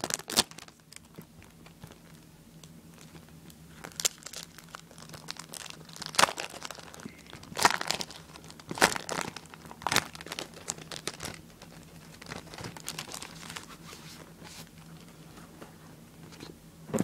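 Packaging crinkling and rustling as a device skin is unwrapped and handled, in irregular bursts of crackles, busiest in the middle.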